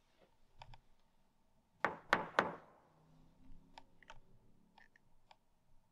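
Three quick knocks with a knuckle on a hallway wall, about a quarter second apart, each leaving a short echo. Faint scattered clicks come before and after them.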